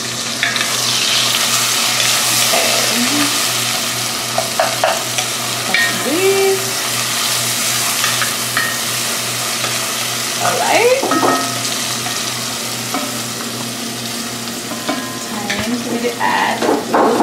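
Chopped onions, tomatoes and jalapeños sizzling in oil in an enamelled Dutch oven, stirred with a wooden spatula. The sizzle is a steady hiss.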